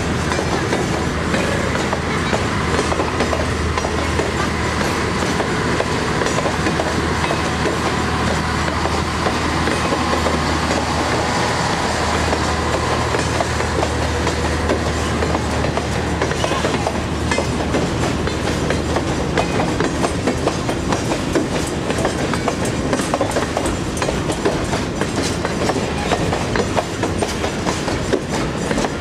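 Freight train of container flatcars rolling past, wheels clattering steadily over the rail joints. A low drone under the clatter fades out about two-thirds of the way through.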